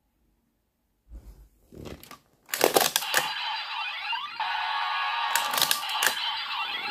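Plastic clicks from a Vistamp being handled and pressed into a Kamen Rider Revice Driver toy, then the belt's electronic sound effects start playing about two and a half seconds in and run on, with sharp clicks mixed in.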